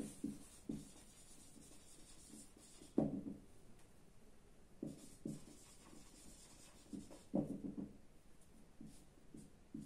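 Marker pen writing on a whiteboard: faint short strokes come in irregular clusters with pauses between, the firmest about three seconds in and again around five and seven seconds.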